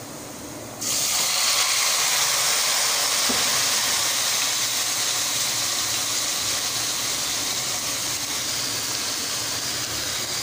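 Chopped tori (luffa gourd) hitting hot oil and browned onions in a steel pot: a sudden loud sizzle starts about a second in and keeps hissing, easing slightly as it goes on.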